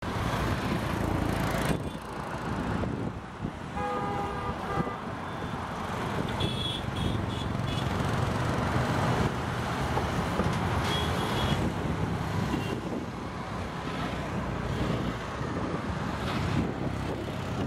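Steady road traffic noise, with short vehicle horn toots: one about four seconds in and a few brief higher ones later.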